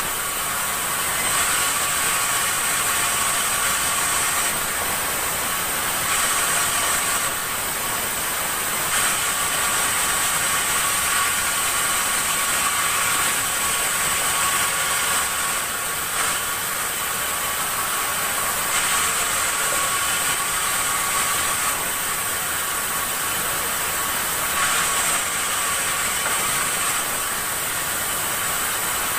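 Sawmill saw running steadily with a high-pitched whine, with small swells in level every few seconds.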